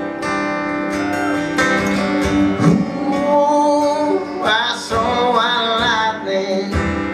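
Acoustic guitar strummed in a steady rhythm, with a man singing long, bending vocal lines over it in the middle.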